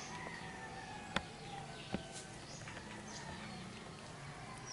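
Quiet ambient background with scattered high bird chirps, broken by two sharp clicks a little over a second in, about three quarters of a second apart.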